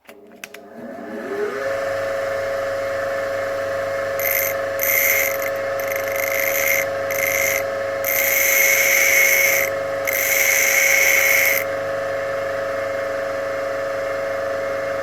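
Bench grinder switched on, its motor hum rising as it spins up to a steady whine. A steel drill bit is then pressed against the coarse wheel in about six separate grinding passes, short at first and then longer, to grind away the chipped cutting edge. The wheel runs on steadily after the last pass.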